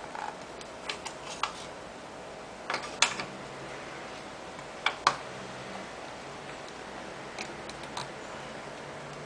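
IBM Travelstar 20GB laptop hard drive running with a steady buzzing whine, the abnormal 'jii' noise that points to a failing drive. Scattered sharp clicks come in small clusters over it.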